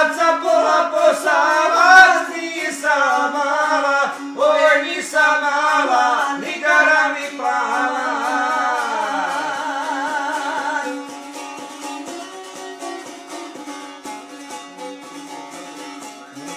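A man and a woman singing a folk melody (kajda) together, drawing out ornamented, wavering held notes over a plucked long-necked lute. About two-thirds of the way through the voices stop and the lute plays on more quietly.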